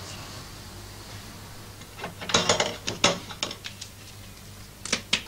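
A letter pushed through the letterbox of a wooden door, the metal flap clicking and rattling in a quick run of sharp clicks about two seconds in, then again near the end.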